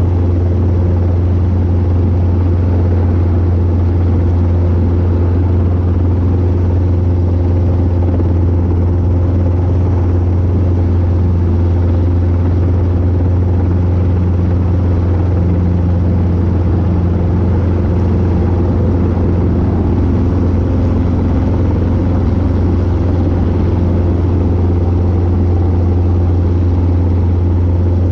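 Robinson R22 helicopter hover-taxiing low over the ground: a steady, loud drone of rotor and engine with a strong low hum, unchanging throughout.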